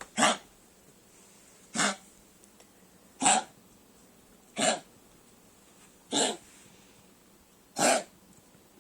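A 12-year-old Chihuahua coughing with kennel cough: six short coughs, spaced about a second and a half apart.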